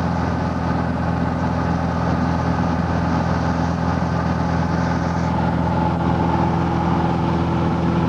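Steady drone of a light high-wing airplane's piston engine and propeller, heard from inside the cabin in flight. A slightly higher tone joins about five seconds in.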